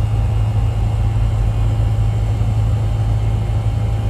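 Steady low machine hum, running without change.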